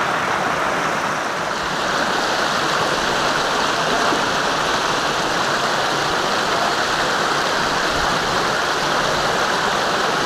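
Mountain creek rushing over boulders and through rapids: a steady, unbroken noise of whitewater.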